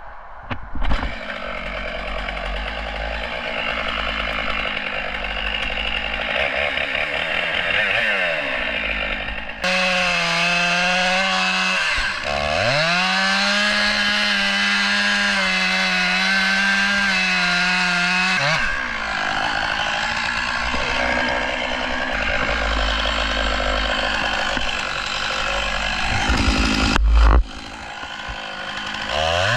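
STIHL 661 two-stroke chainsaw running hard while cutting into a bigleaf maple trunk. Its pitch dips about a third of the way in and recovers, and near the end it gets briefly louder, then drops off suddenly.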